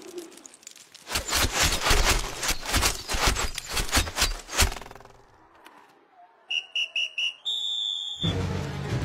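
A rain of toothpicks striking the sand: a rapid, uneven flurry of sharp impacts for about four seconds. Then come four short high beeps and a held tone, and music starts near the end.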